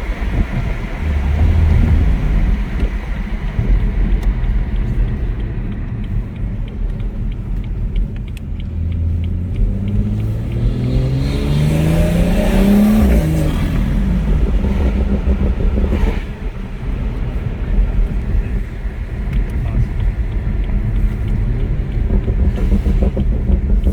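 BMW 340i's B58 turbocharged inline-six, fitted with a CTS aftermarket intake, driving with a steady low drone. Midway through, the engine accelerates, climbing in pitch for about four seconds, then drops off sharply.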